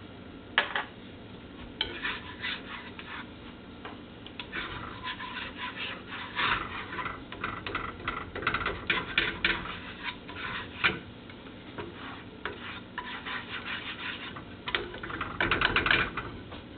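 A utensil stirring in a cooking pot, scraping and clicking against the pot in irregular bursts, the busiest stretch near the end.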